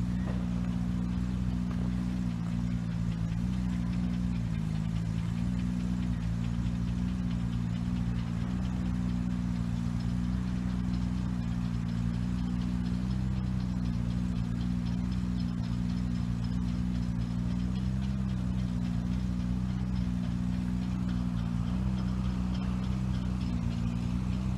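Diesel train engine idling steadily, a low even hum that wavers slightly in pitch.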